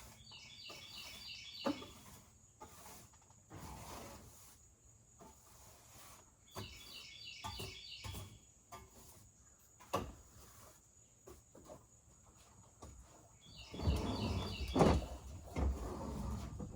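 A bird calling three times, each a quick run of high chirps, over scattered knocks and handling noises, with a louder stretch of rustling and thumps near the end.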